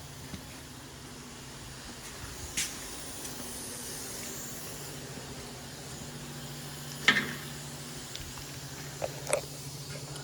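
Steady low hum and hiss with a few sharp, short clicks spread through it, the handling of hand tools during the wheel bearing job.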